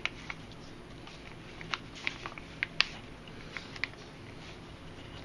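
Paracord being handled and pulled through a knot, heard as scattered small clicks and ticks, several close together just before the middle, over a low steady hum.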